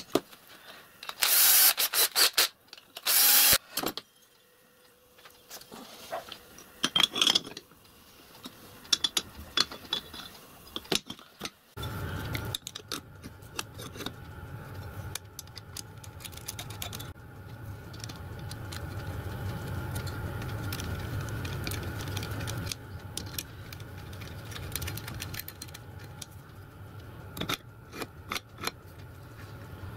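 Small metal lathe parts (gears, platform, clutch pieces) being handled and fitted by hand: clicks and metallic clatter, loudest in the first few seconds. About twelve seconds in, a steady mechanical hum starts and runs under the clicks, easing off near the end.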